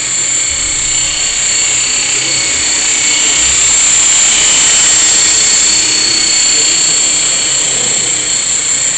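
Esky Belt CPX collective-pitch electric RC helicopter flying: a steady high-pitched whine of its motor and spinning rotors, growing louder about four seconds in as it passes close, then easing off.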